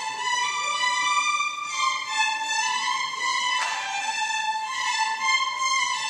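Violin playing a melody of held notes that step up and down, with a brief noisy accent a little past halfway.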